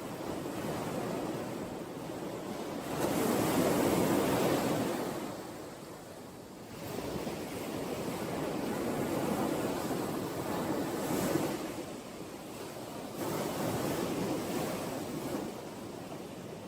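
Ocean waves breaking and washing ashore, the surf swelling and ebbing in several surges, the loudest about three seconds in.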